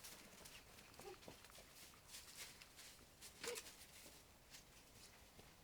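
Faint, scattered patter of running feet from a child and Nigerian dwarf cross goat kids, with one brief louder sound about three and a half seconds in.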